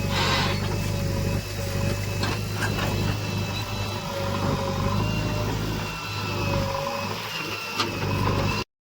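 Diesel engine of heavy earthmoving machinery running steadily, with a wavering whine over it and a few short knocks. The sound cuts out briefly near the end.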